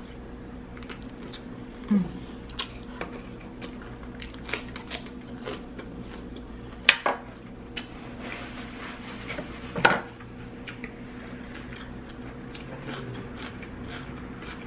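Eating sounds close to the microphone: scattered taps and clinks of cutlery and dishes, with biting and chewing, the sharpest clicks about 2, 7 and 10 seconds in. A faint steady hum runs underneath.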